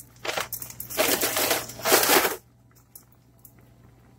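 Dry bihon cornstarch noodle sticks crunching and crackling in three rough bursts as the brittle block is handled into the pan. The crunching stops about two and a half seconds in.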